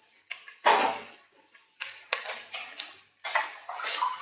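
Irregular short clinks and knocks of kitchenware being handled, a few with a brief metallic ring.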